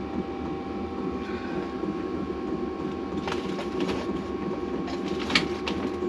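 A steady workshop hum with a few light clicks and taps as the engine parts are handled, the sharpest about five and a half seconds in.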